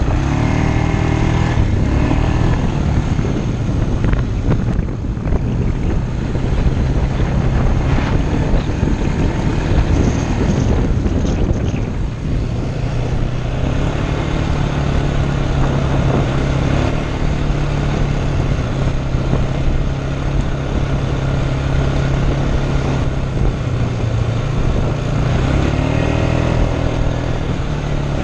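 ATV engine running steadily under way, its note shifting up and down near the start and again near the end.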